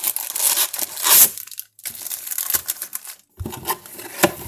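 Foil wrapper of a Topps baseball card pack being torn open and crinkled in the hands, in crackling bursts with a loud rip about a second in and two brief pauses.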